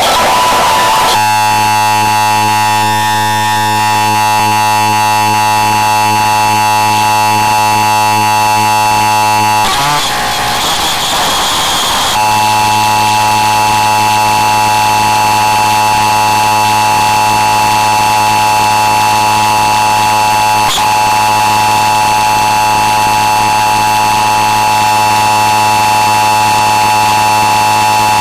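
Emergency Alert System alarm tone for an Amber Alert, heavily distorted and very loud, holding steady with a low buzz beneath it. About ten seconds in it breaks into a couple of seconds of harsh noise, then the tone resumes and runs on.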